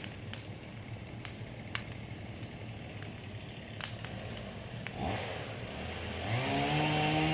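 Scattered light clicks and crackles over a low rumble, then about six seconds in a chainsaw engine catches, rises in pitch and settles into steady running.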